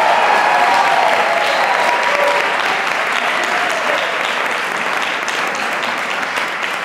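Audience applauding, with a few voices calling out over the clapping in the first couple of seconds.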